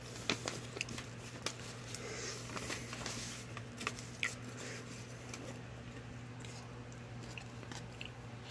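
Paper mailer envelope and play-money bills being handled: crinkling and rustling with scattered light clicks and taps, busiest in the first half. A steady low hum runs underneath.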